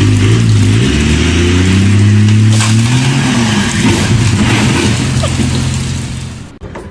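A heavy engine running and revving, its pitch rising and falling, under a loud, rough noise. It stops abruptly near the end.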